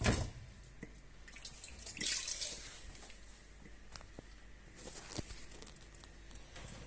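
A sponge mopping up standing water in the bottom of a dishwasher tub, with water splashing and dripping in three spells a couple of seconds apart. The water is left standing because the dishwasher will not drain (i20 drain fault).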